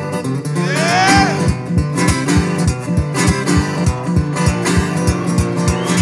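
Cole Clark acoustic guitar played solo in a driving blues, with a note sliding up in pitch about a second in. From then on a low thump keeps the beat about four times a second.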